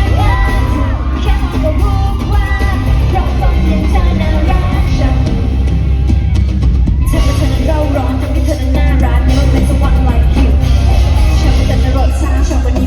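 Live pop music played loud through a concert hall's sound system: a singer's melody over a backing track with heavy bass, and a short drop in the music a little past the middle.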